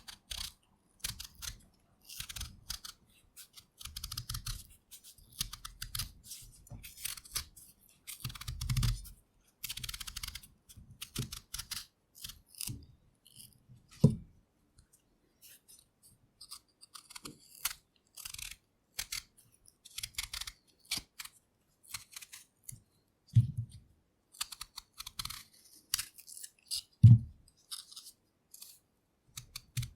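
Potatoes being peeled with a knife: short, irregular scraping and cutting strokes of the blade through the skin, with a few louder knocks, the loudest near the end.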